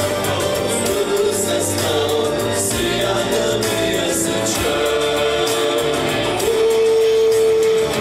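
A man singing an Adyghe song into a handheld microphone over an amplified backing track with a steady beat. He holds a long note through the last second and a half.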